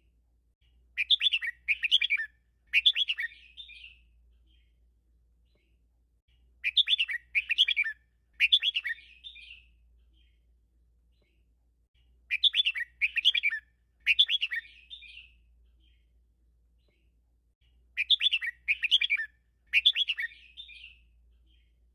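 Red-whiskered bulbul singing four bouts of song. Each bout is three quick, rich warbling phrases followed by a short trailing note, with a few seconds of pause between bouts.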